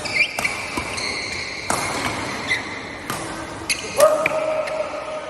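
Badminton rally: rackets strike the shuttlecock with sharp cracks, about six in irregular succession with the loudest near the end, while court shoes squeak on the hall floor.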